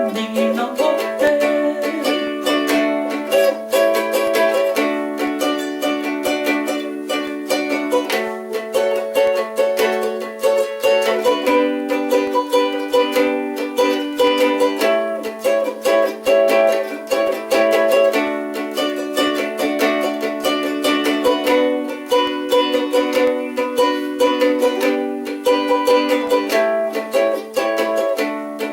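Ukulele strummed in a steady rhythm, playing chords, in a small room.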